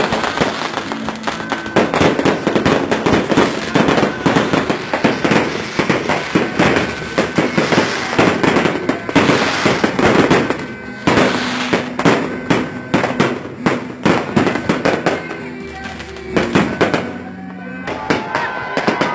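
Fireworks going off in a dense barrage: rapid, overlapping bangs and crackles, thinning briefly a couple of seconds before the end.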